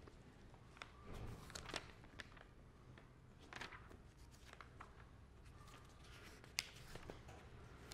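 Near silence: room tone with a few faint scattered clicks and rustles, the sharpest about six and a half seconds in.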